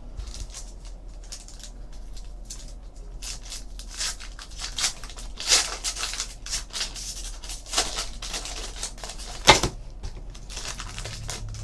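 Baseball trading cards and a foil card pack being handled: irregular rustling, crinkling and tearing, with a sharp snap about nine and a half seconds in.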